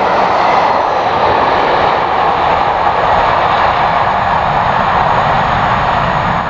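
Steam-hauled passenger train running past at speed: a steady, loud rushing rumble of wheels on rails.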